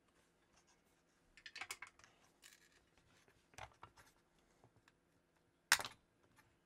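Faint scratching and light clicks of fingers working a desoldered electrolytic capacitor loose from a single-sided power supply circuit board, with one sharp click nearly six seconds in, the loudest sound.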